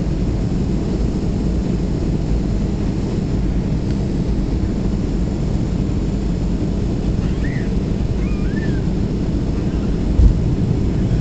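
Steady low rumble inside the cabin of a Boeing 737-300 on descent: its CFM56-3 turbofan engines and airflow, heard from a seat over the wing. A brief thump about ten seconds in.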